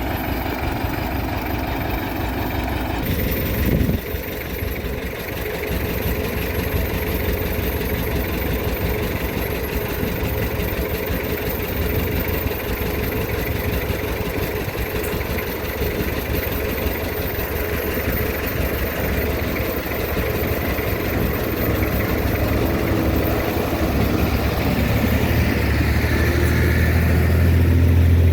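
Diesel engines of heavy earthmoving machinery running steadily, with an abrupt change in the sound about three seconds in. A deep engine drone grows louder near the end.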